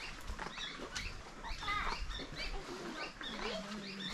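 Small birds chirping in the surrounding trees: many short, high, falling calls repeating quickly, with footsteps on sandy ground.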